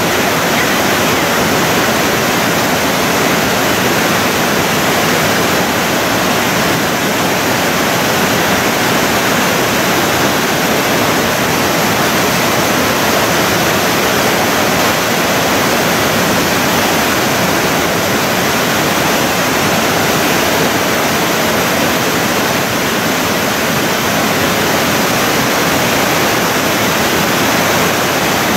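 Large waterfall's water pouring down in a loud, steady rush.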